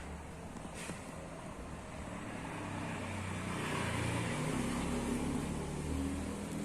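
A motor vehicle passes by, its engine hum and road noise building to a peak around the middle and easing off toward the end.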